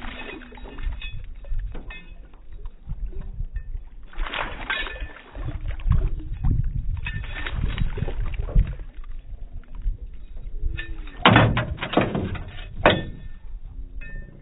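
Water splashing and knocks in a small boat, in three bursts, as a hooked fish is played and landed, over a low rumble of wind or handling on the microphone.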